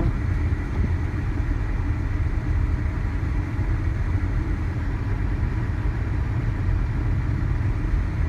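A car driving through a snowstorm: a steady low rumble of engine and road noise that neither rises nor falls.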